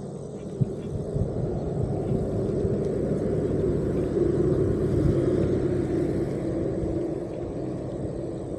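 A motor vehicle passing, a low rumble that swells to its loudest about halfway through and then fades.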